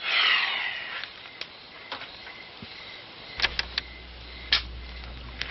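Handling noise: a brief rustling swoosh, then scattered sharp clicks, with a quick cluster of clicks about three and a half seconds in. A steady low hum sets in at the same moment.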